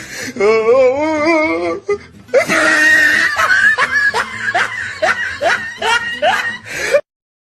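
A comic sound clip of laughter: a quavering, wobbling voice for about two seconds, then a run of rhythmic ha-ha laughter at about two a second, cutting off abruptly shortly before the end.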